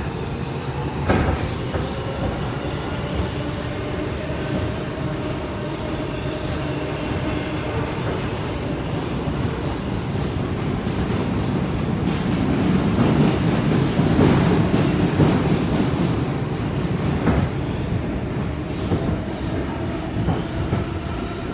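New York City subway car running at speed, heard from inside: a steady rumble of wheels on rail with a sharp click about a second in. The rumble grows louder for several seconds around the middle, then eases back.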